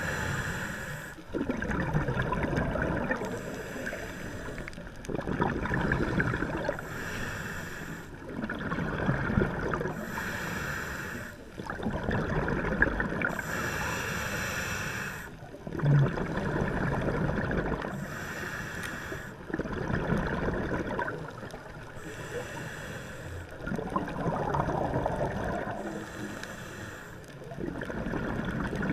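Scuba breathing through a demand regulator, heard underwater: regular breaths about every three to four seconds, each a hiss alternating with a longer spell of bubbling gurgles, about eight cycles in all.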